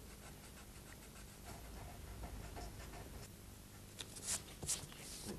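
Faint scratching of a rubber (eraser) scrubbing ink off a Bromoil print's paper to lift out the highlights, with a few louder brushing rustles about four seconds in.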